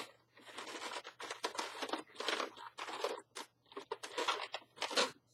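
Latex twisting balloons rubbing and scraping against each other as they are handled and rolled into the body of a balloon sculpture, in irregular strokes.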